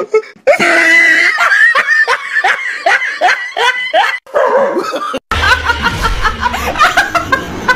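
A person laughing hard in quick, repeated bursts. About five seconds in there is a short break, then more laughter over a low background noise.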